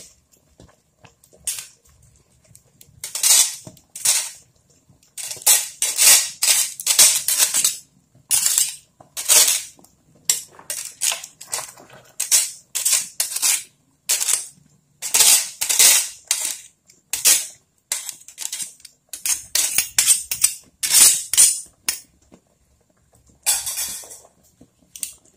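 Spaghetti being tossed and stirred with a wooden spatula in a metal pot of cream sauce: a long string of short, irregular swishes and scrapes.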